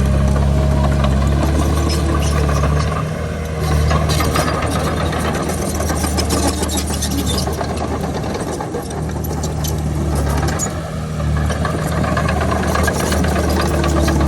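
Komatsu D31PX bulldozer's diesel engine running under load while pushing dirt, easing off briefly about three seconds in and again near eleven seconds, with steady clatter from the machine over it.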